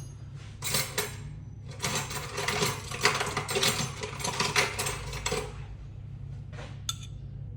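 A honey jar being opened and honey spooned out: a few seconds of dense rattling and scraping of lid and spoon, then a single sharp click near the end, over a steady low hum.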